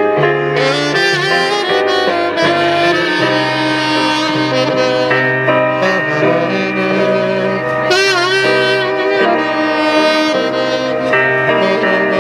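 Saxophone playing a jazzy melody over a backing track with a low bass line, with a wavering vibrato on a held note about eight seconds in.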